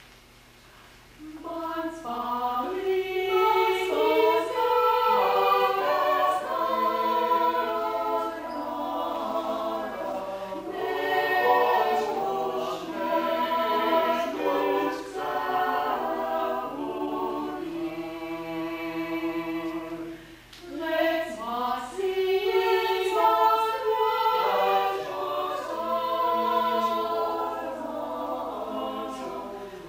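Small mixed choir of men's and women's voices singing a cappella in harmony. The singing begins about a second in and breaks off briefly about two-thirds of the way through before going on.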